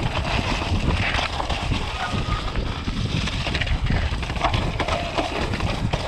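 Mountain bike running fast down a wet, muddy trail: constant tyre noise through the mud with the bike rattling and knocking over bumps, and wind rushing over the microphone.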